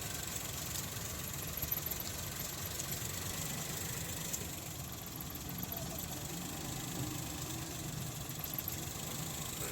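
Suzuki car engine idling steadily.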